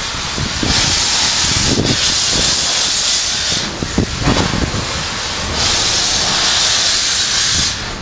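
Steam locomotive venting steam with a loud hiss that swells and eases several times, strongest about a second in and again for the last couple of seconds.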